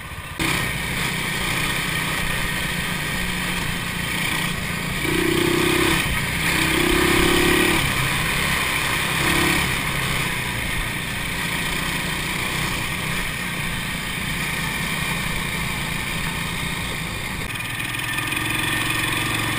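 ATV engines running steadily as the quads ride along a dirt track, with a constant rush of wind on the microphone. A second engine note stands out for a few seconds near the middle as another ATV runs close alongside.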